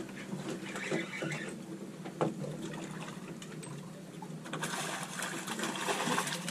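Water lapping and splashing against a fishing boat's hull, with a single sharp knock about two seconds in; the splashing grows stronger past the middle.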